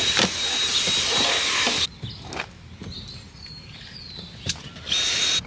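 Vacuum cleaner running on a car's interior: a loud rush of air with a steady high whine, in two stretches, about two seconds at the start and a short burst near the end, with quieter knocks between.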